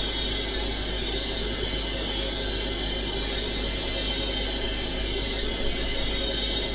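Synthetic sound resynthesized in Photosounder from a spectrogram image of an electric fan recording: a steady, unchanging hiss layered with many held tones and a low hum.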